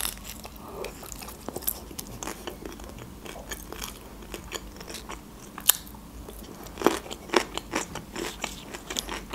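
Close-miked chewing of a mouthful of taco in a thin lavash wrap: soft, irregular wet clicks and crunches, with a few louder crunches past the middle.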